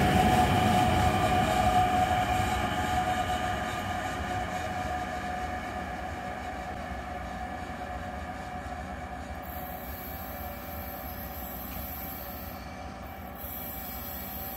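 Metronom double-deck push-pull train, with its class 146 electric locomotive pushing at the rear, rolling away. Its electric traction whine, a steady set of tones over the rolling noise, fades steadily as it recedes.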